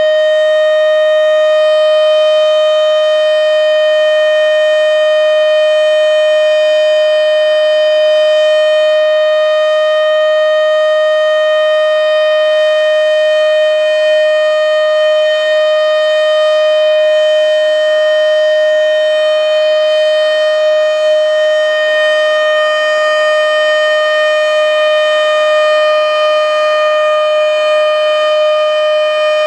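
Federal Signal Model 7B outdoor warning siren sounding loud and steady during a test activation. It holds one unwavering tone made of several pitches together, with no rise or fall.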